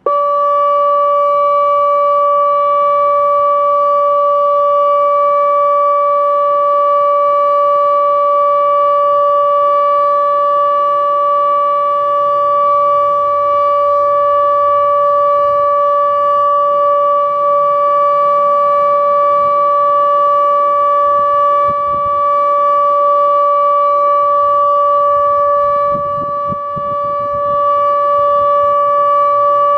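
ATI HPSS-16R electronic speaker siren sounding its alert signal: one loud, steady, unchanging tone that starts abruptly and holds at a single pitch.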